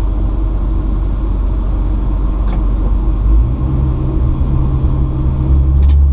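Inside the cabin of a moving 1958 Chevrolet Bel Air: its 283 cubic-inch V8 and the road noise make a steady low rumble. The engine note rises about three and a half seconds in and grows louder near the end.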